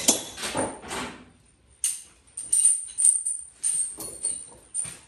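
Steel chain being handled, its links clinking and jingling. There is a rattle in the first second, then irregular bursts of sharp, bright jingles.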